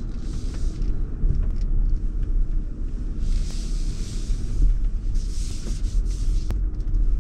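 Land Rover moving slowly along a waterlogged off-road track, heard from inside the cab: a steady low rumble, with three or four hissing swishes against the body and a few light knocks.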